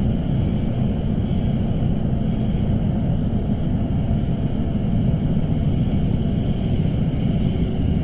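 Suspense ambience sound effect: a steady, dense low rumble with faint high ringing tones held above it.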